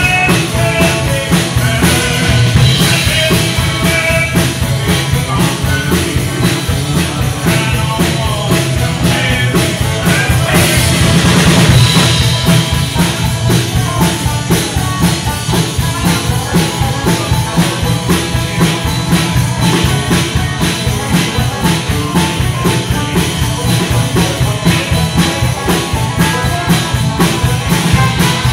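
Live acoustic string band: two acoustic guitars strumming a steady rhythm while a banjo picks over them.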